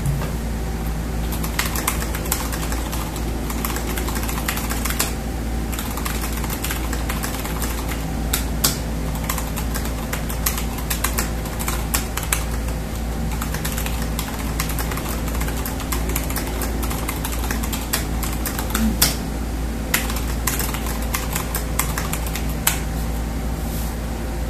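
Typing on a Skyloong GK68XS 68% mechanical keyboard with stock Gateron Red linear switches and XDA keycaps: a run of irregular key clacks. A steady low hum sits underneath.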